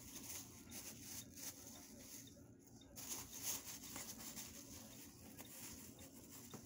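Thin plastic bag crinkling and rustling faintly as a kitten scrambles about inside it, in uneven crackly bursts that peak about three and a half seconds in.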